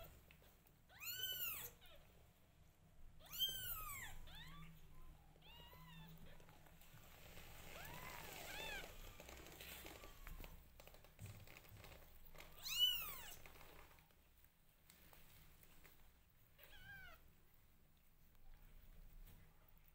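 Newborn kittens mewing: about six high-pitched mews that rise and fall in pitch, spaced a few seconds apart, the loudest about 13 seconds in.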